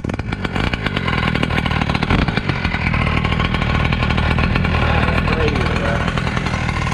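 Small two-stroke gasoline engine of a large-scale RC monster truck running steadily.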